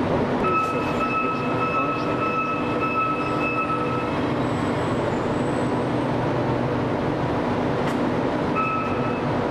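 Steady machinery noise in a shortwave transmitter hall: a constant rumble with an electrical hum. A high steady tone sounds for about three and a half seconds starting half a second in, and briefly again near the end.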